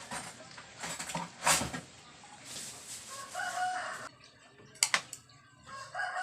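Kitchenware clatters in the first two seconds, then a rooster crows once about three seconds in, with a sharp knock shortly after.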